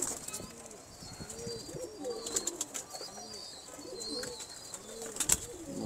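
Domestic pigeons cooing, several birds overlapping in repeated rising-and-falling calls. There are a few sharp clicks, the loudest about two seconds in and again near the end.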